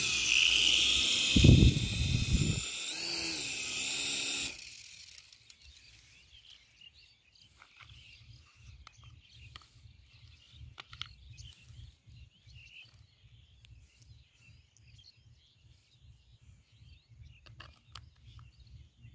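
Tiny electric motor and propeller of a pocket-sized RC airplane whining at high pitch, its pitch rising and falling as the throttle changes, with a brief low rumble about two seconds in. The whine cuts off abruptly about four and a half seconds in, leaving only faint low ticking and scattered clicks.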